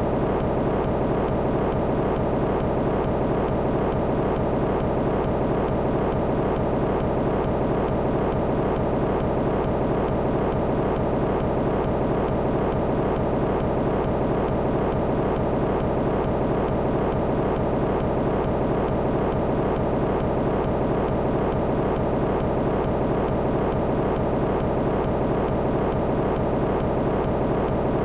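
A steady, dense droning noise that never changes in level, with a faint regular tick running through it.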